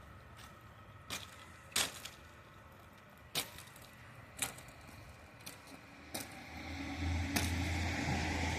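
Ice being knocked off: about six separate sharp cracks of breaking ice, a second or so apart. Near the end a low rumble of a vehicle comes up.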